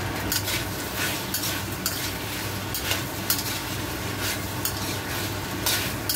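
Pork strips, onion and bell pepper sizzling in a wok while a spatula tosses them, with irregular short scrapes of the spatula against the metal pan over a steady sizzle.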